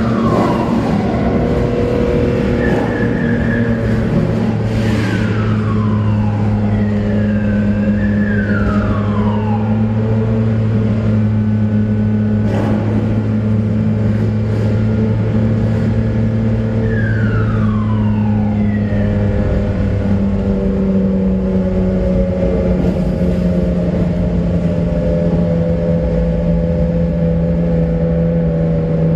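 Ferrari Enzo's V12 engine running steadily at low revs while cruising, heard from inside the car. A few falling sweeps in pitch pass over it, and about twenty seconds in its deepest note drops away as the engine speed changes.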